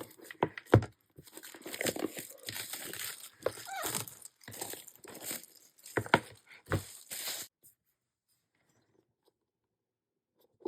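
Plastic shrink-wrap being torn and crinkled off a K-pop album, with a few sharp clicks and knocks from handling the package. It stops about seven and a half seconds in.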